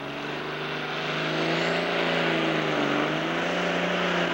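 Turbocharged diesel engine of a Pro Stock John Deere pulling tractor running flat out under load down the track. It grows louder over the first second or so, then holds steady, its pitch wavering slightly as the sled bears down.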